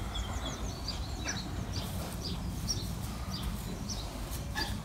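Birds chirping in short, high calls scattered throughout, over a steady low rumble.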